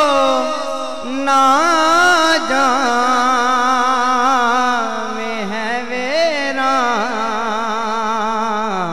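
A man singing a naat, a devotional Urdu song in praise of the Prophet, into a microphone. One voice in long, ornamented melodic lines that bend and waver in pitch, with no break.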